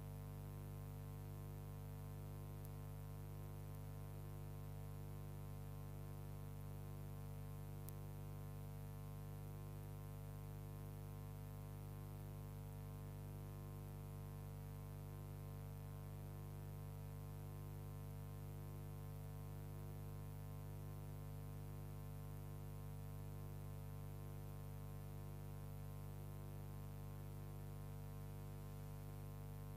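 Steady electrical hum with many even overtones, unchanging throughout: mains hum on the old film's soundtrack rather than any sound from the locomotives shown.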